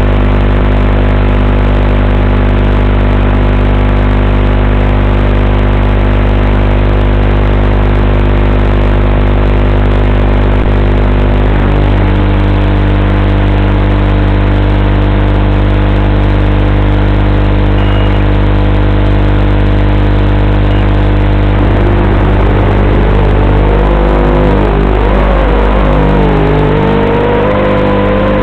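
Eachine Racer 250 Pro quadcopter's brushless motors running steadily, armed and idling with the craft on the ground. From about three-quarters of the way in, the pitch wavers and rises as throttle comes up for takeoff.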